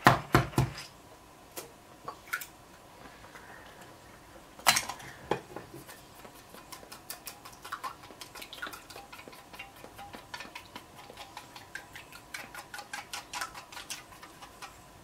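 Kitchen utensils clicking and knocking against a dish: a few sharper knocks at the start and about five seconds in, then a steady run of light quick taps, a few a second.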